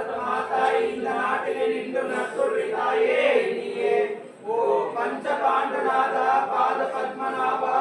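Several voices chanting together in a steady devotional chant, with a short break about four seconds in.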